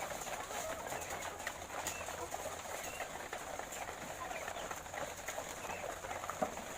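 A large flock of laying hens clucking and murmuring together in a steady, dense chatter, with scattered small clicks and knocks.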